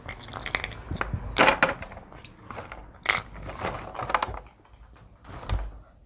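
Irregular knocks, clicks and rustling of small hard objects being handled and set down, a few every second.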